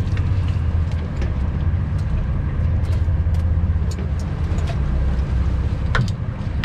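Boat engine running steadily with a low rumble, with scattered light clicks and knocks from handling gear on deck.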